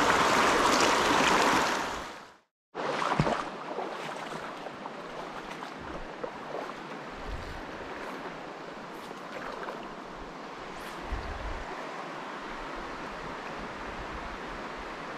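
Shallow mountain river rushing over rocks close to the microphone, loud for the first two seconds. It cuts off abruptly, then comes back as a quieter, steady flow of river water.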